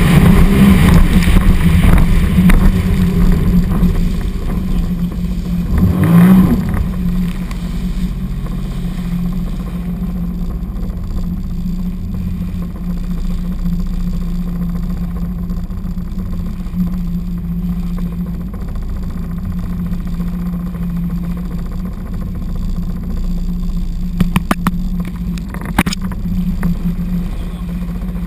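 Sea-Doo 255 personal watercraft's supercharged three-cylinder engine running hard at first, then throttled back after a few seconds to a lower, steady drone, with a brief swell and drop about six seconds in. A few sharp clicks near the end.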